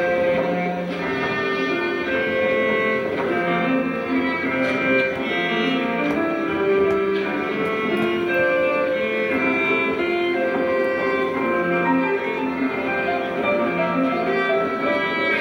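Live instrumental music from a small band, with a bowed cello carrying sustained melodic notes.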